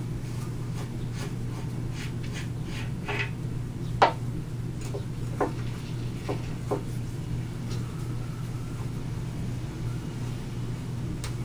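Metal wrench clinking and ratcheting on the main bearing cap nuts of a Hercules 2½ HP engine: a few sharp metallic clicks, with one louder clank that rings briefly about four seconds in, over a steady low hum.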